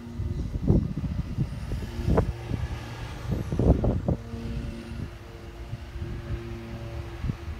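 Distant Short SC.7 Skyvan twin turboprop droning overhead, a steady hum that fades in and out, broken by several low buffeting thumps on the microphone.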